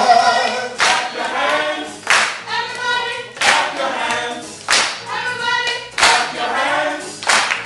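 Gospel choir singing together with a steady hand clap on the beat, a sharp clap roughly every second and a quarter.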